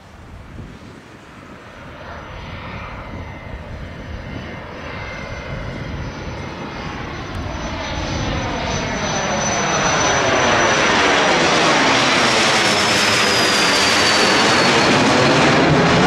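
Cessna 510 Citation Mustang business jet on takeoff, its two Pratt & Whitney Canada PW615F turbofans growing steadily louder as it approaches and passes. The high turbine whine drops in pitch in the last few seconds as the jet goes by.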